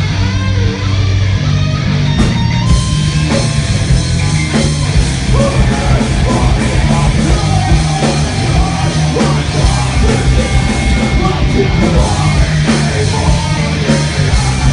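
Heavy metal band playing live and loud: distorted electric guitars, bass and drums, with a vocalist yelling into the microphone.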